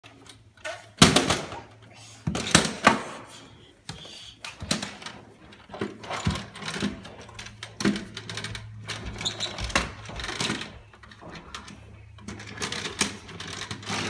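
Plastic toy vacuum cleaner knocking and rattling against wooden stair treads as it is pushed and lifted step to step: a run of irregular knocks and clatter, loudest about a second in and between two and three seconds in. A steady low hum runs underneath.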